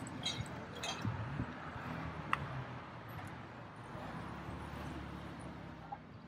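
Street traffic: cars and SUVs driving through an intersection, a steady hum of engines and tyres. A few light clicks near the start and a short high chirp about two seconds in.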